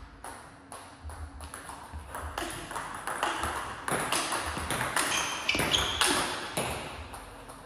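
Table tennis balls being struck with rackets and bouncing on the table, a quick run of sharp clicks, several a second.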